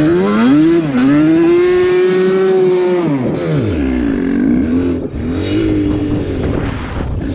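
Yamaha Banshee's twin-cylinder two-stroke engine revving: the pitch climbs, holds high for about two seconds, then drops about three and a half seconds in and runs lower and steady.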